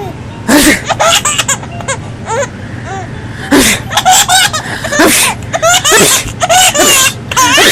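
Baby laughing in a string of short, high giggles and squeals, broken by a few sharp breathy bursts.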